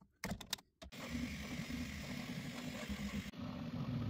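Enclosed 3D printer running a print: a steady motor and fan whir with a low hum, preceded by a few short clicks in the first second.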